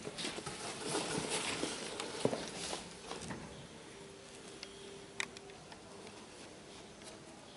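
Rustling and handling noise as black cloth shoe dust bags are lifted out of a cardboard shoebox, busiest in the first three seconds, then quieter, with a single sharp click about five seconds in.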